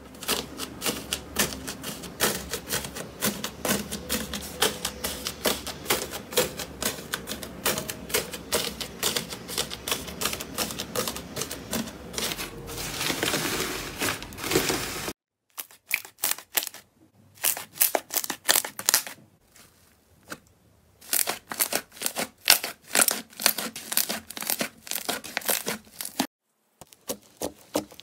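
Hands pressing and squeezing a tray of blue slime topped with small beads, giving dense crackling clicks for about fifteen seconds. After a sudden cut, slime squeezing gives shorter groups of clicks and pops with brief pauses between them.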